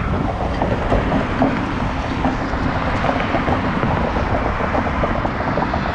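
Riding noise of a single-speed cruiser bicycle heard from a camera on the moving bike: a steady rush of wind and tyre-on-pavement noise with a fast, irregular ticking and rattle.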